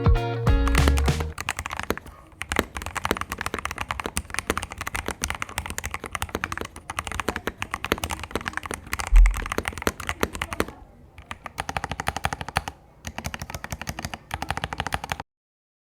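Royal Kludge RK68 mechanical keyboard being typed on quickly, a dense run of key clacks with one deeper thud about nine seconds in. Background music fades out in the first second or so.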